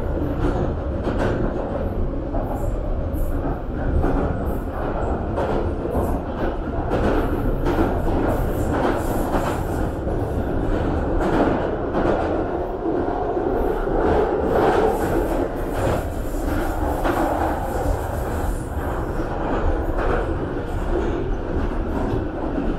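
A London Underground Northern Line tube train, 1995 Tube Stock, running through a tunnel, heard from inside the carriage. It makes a steady loud rumble with frequent clicks and clacks from the wheels over the track, swelling a little in the middle.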